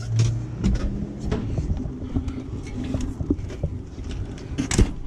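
Scattered light clicks and knocks of hands working on a truck's cab, over a low background hum; the sharpest knock comes near the end.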